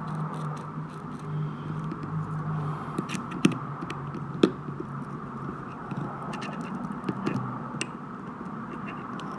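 Steel pick scraping and tapping in the head of a vintage Snap-on GM-70M ratchet, working at the oil-soaked, gummy pawl mechanism that has just broken free. There are scattered small metal clicks, with a couple of sharper ticks midway, over a steady low hum.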